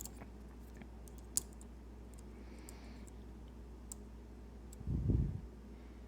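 Faint, scattered small clicks and ticks of a lock pick probing the pins of a Sargent Keso 12-pin dimple lock, with one sharper click a bit over a second in and a dull low thump about five seconds in.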